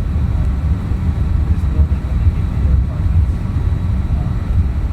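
Steady low rumble of an Airbus A321neo's engines and airflow, heard inside the passenger cabin during the takeoff and climb.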